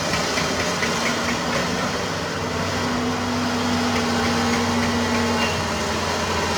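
Diesel engine of a Doosan 500LCV excavator running steadily as it works. A faint held whine runs through the middle, and there is light rapid ticking in the first second or so.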